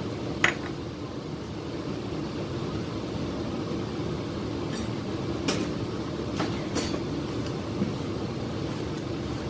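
Cooking at a pot: a steady low rumble, with a few sharp clinks of a utensil against the pot or dish as tomatoes are added, one about half a second in and several around the middle.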